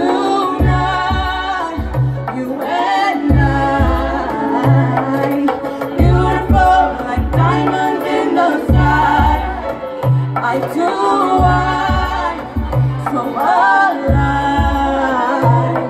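Live music with singing: a voice sings a melody over an accompaniment with a steady, deep bass beat.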